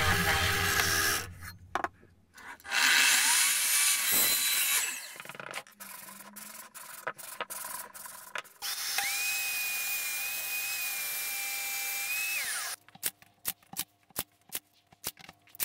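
Woodworking power tools in quick succession: a bench drill press boring into timber, then a motor running with a steady whine for about four seconds. Near the end comes a run of sharp clicks, about four a second, from a cordless nail gun driving nails into a wooden box.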